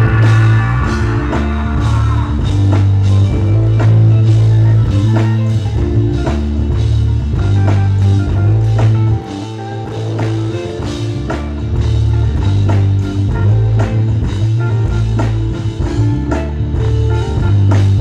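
Loud music with a steady drum beat over a heavy bass line; a sung voice fades out in the first couple of seconds, leaving the music without vocals.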